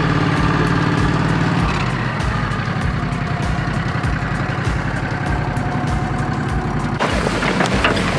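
Engine of a Bulldog BD 700 4x4 utility vehicle running as it drives along with a steady, even drone. About seven seconds in, a rougher, noisier sound takes over.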